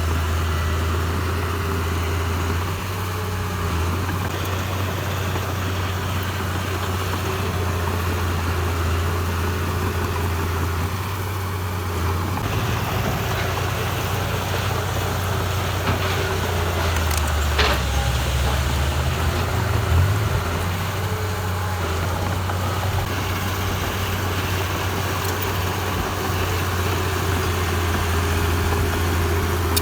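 Heavy earthmoving machine's diesel engine running steadily with a deep hum, the engine note shifting slightly partway through. A short sharp sound and a knock come a little after halfway.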